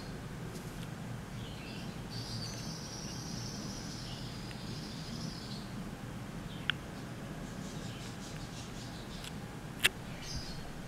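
Quiet room tone: a steady low hum with faint high chirping, and two sharp clicks, the second and louder one near the end.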